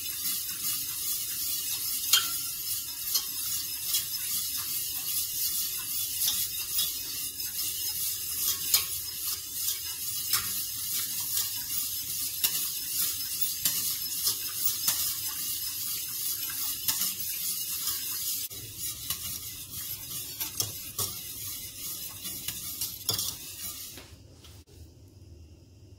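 Wire whisk scraping and rattling rapidly against the inside of a stainless steel pot as béchamel sauce is whisked; the whisking stops about two seconds before the end.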